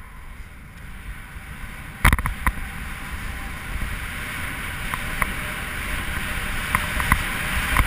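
Wind rushing over the camera microphone and a snowboard sliding and scraping over snow, growing gradually louder through the run. A couple of sharp knocks come about two seconds in.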